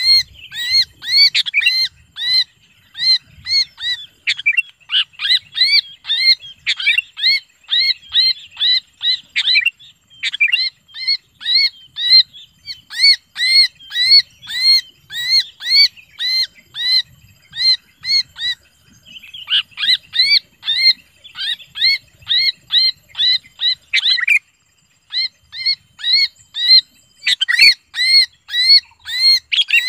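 Sooty-headed bulbul held in the hand giving harsh distress screams, a fast run of repeated arched notes, about two to three a second, with a short break near the end followed by quicker, denser calling. This is the distress call used as a lure to draw other bulbuls in.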